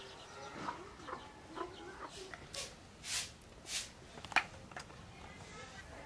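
Chickens clucking softly, a scatter of short calls, with one sharp knock a little over four seconds in.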